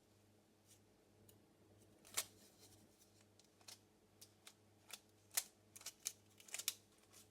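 Faint handling sounds of a fidget worm ball: scattered short clicks and taps, more frequent in the second half, over a low steady hum.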